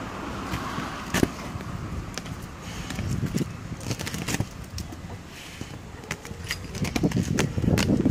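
American Staffordshire terrier tearing at a mattress: the fabric cover ripping and the padding crackling in fits and starts, with many sharp clicks, and the metal leash clip and collar jingling.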